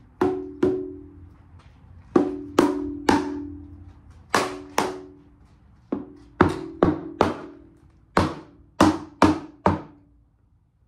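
About fifteen hammer taps on a Ford 302's stamped-steel valve cover, in irregular groups of two and three. Each blow rings briefly at the same two pitches as the cover is knocked loose from its gasket.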